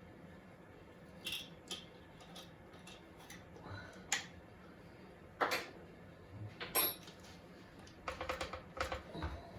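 Scattered clicks and clinks of hand tools and small metal parts being handled during disassembly, with a few sharper knocks about four, five and a half, and seven seconds in, and a run of small clicks near the end.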